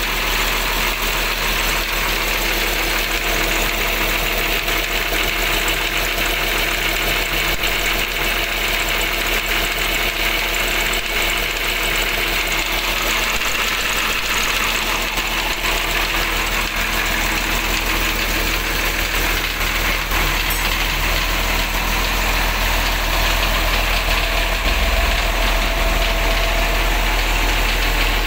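Rear-mounted diesel engine of an intercity bus idling steadily in its open engine bay, accessory belts and pulleys spinning. It is running again after a stall that the crew put down to air in the fuel line following a diesel fuel-filter change.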